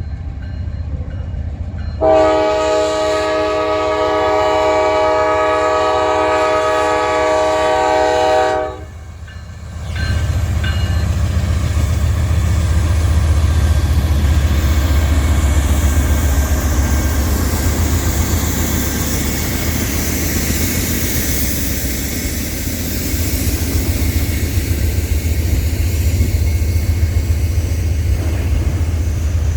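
A diesel freight locomotive's multi-chime air horn blows one long blast of about six seconds, then the train passes close by: a loud low engine rumble with the rush and clatter of wheels on rails.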